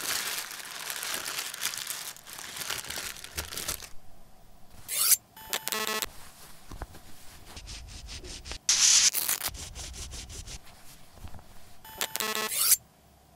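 Close-up rustling and rubbing of a soft white cloth between hands for about four seconds. Then comes a string of separate short handling noises: two buzzy scrapes, a few ticks and a brief loud hiss near the middle.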